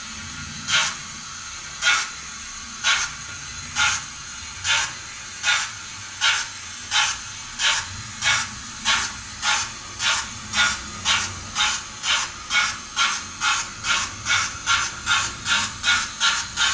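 Digital sound decoder in an OO gauge model of a Southern H2 Atlantic 4-4-2 steam locomotive playing exhaust chuffs through its small loudspeaker as the train pulls away. The chuffs speed up steadily from about one a second to about two and a half a second, over a low rumble.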